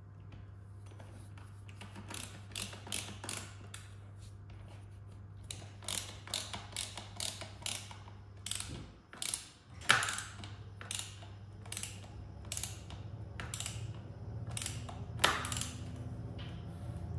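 Hand screwdriver driving Phillips screws into a plastic hose reel frame: runs of short sharp clicks, about two or three a second, as the handle is turned, with two louder knocks about ten and fifteen seconds in.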